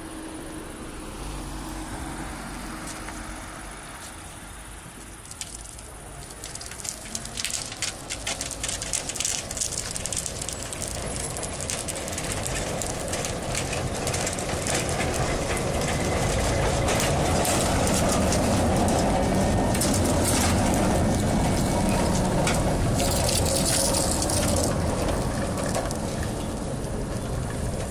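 Tram rolling along rails coated in softened tar, its wheels crackling and popping through the tar as it approaches, growing to a loud rolling rush as it passes close by.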